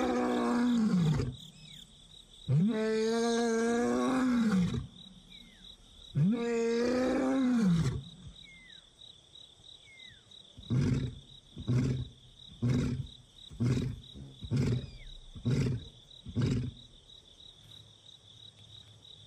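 Male lion roaring: three long moaning roars, each holding a steady pitch and dropping at the end, then a run of about ten short grunts, the usual close of a lion's roaring bout. A contact call to find his separated brother.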